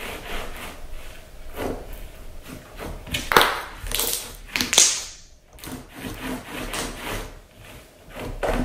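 Thick gold slime loaded with metallic mica powder being kneaded and pressed against a tabletop: irregular sticky squishes, rubs and taps, with two louder ones about three and a half and five seconds in.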